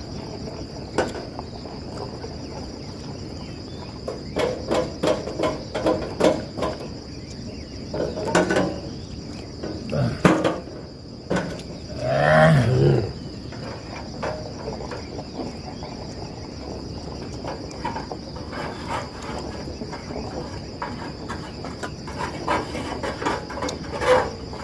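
Crickets chirring in one steady high trill throughout, with scattered clicks and taps from eating off a metal tray and one short voice sound about twelve seconds in.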